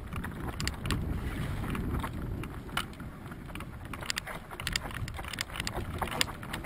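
Mountain bike rolling down a rough, stony dirt singletrack: wind rumbles on the microphone, with scattered clicks and rattles as the bike jolts over stones, busier from about four seconds in.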